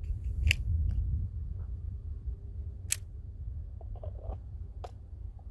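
Wind buffeting an outdoor microphone as a low, uneven rumble, with a few sharp clicks spread through it and a soft rustle about four seconds in. No shot is fired.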